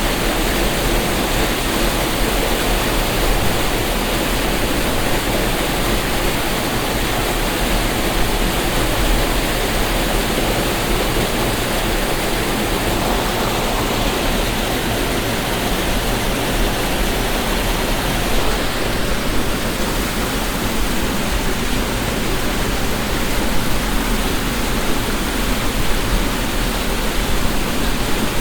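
Waterfall: water falling and splashing in a steady, loud rush of noise.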